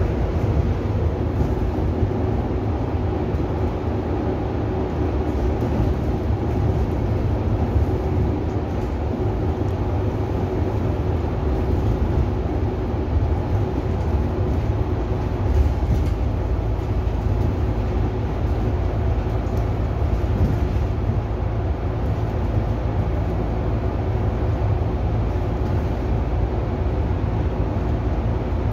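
City bus driving, heard from a seat inside the passenger cabin: a steady low rumble of engine and road noise with a faint hum over it.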